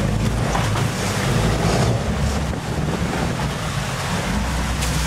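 Boat engine rumbling steadily under the rush of churned water at the stern, with wind buffeting the microphone.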